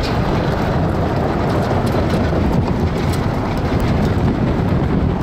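Strong wind buffeting the microphone: a loud, steady low rushing noise.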